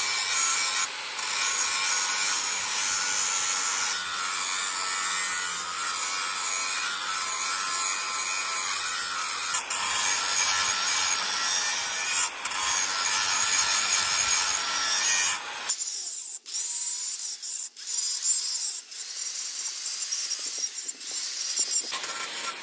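Steel knife blade being ground or filed, a steady harsh rasping. About fifteen seconds in it changes to a thinner sound with scattered clicks.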